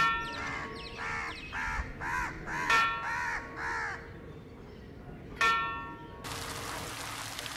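A crow cawing repeatedly, about eight caws in quick succession over the first four seconds, over a ringing chime struck three times at even spacing. A steady hiss of rain comes in about six seconds in.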